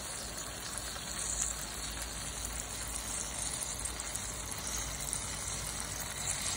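Soy sauce boiling and sizzling in a pan around pieces of fried fish, a steady hiss.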